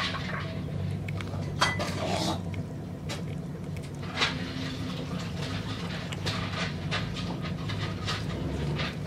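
Kitten chewing and tearing at a small whole fish, with irregular chewing clicks, over a steady low hum.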